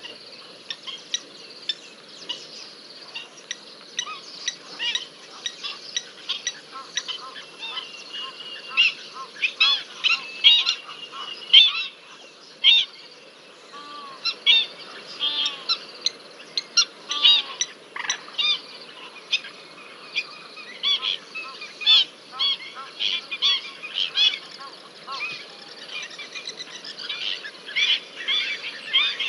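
African wild dogs giving their high-pitched, bird-like twittering calls, many short chirps and squeals in quick series that come and go, loudest in the middle of the stretch.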